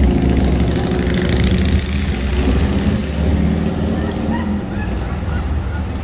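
Engine of a motor vehicle running close by: a loud low rumble that comes in suddenly at the start and holds steady, easing a little near the end.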